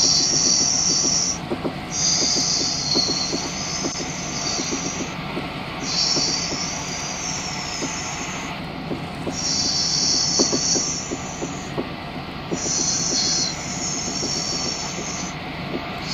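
Wheels of an older CX Stockholm metro train squealing on the rails as it runs, the high squeal coming in about five stretches of two to three seconds each with short breaks. Underneath is a steady rumble with rapid clicking from the wheels.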